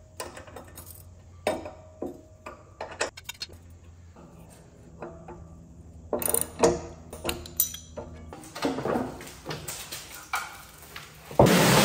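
Scattered metallic clinks and knocks of a ratchet socket wrench and screwdriver on a mower blade and its bolt as the blade is tightened onto the deck spindle. Near the end, a louder noisy scrape as the mower deck is moved across cardboard.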